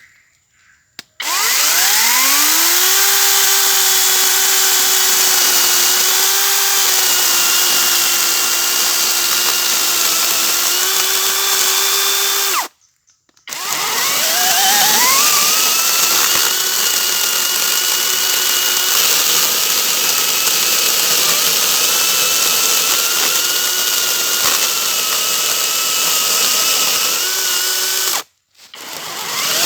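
40-volt brushless cordless chainsaw running: the electric motor spins up with a rising whine, runs at a steady pitch, cuts off suddenly about halfway through, then spins up again and runs until it cuts off near the end, starting to spin up once more just at the close.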